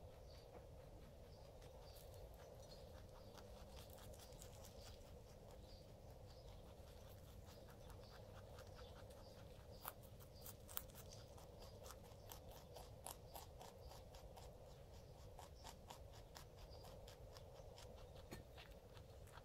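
Pet rabbit chewing and crunching kale leaves: a quick, irregular run of small crisp crunches, sparse at first and more frequent from about halfway through.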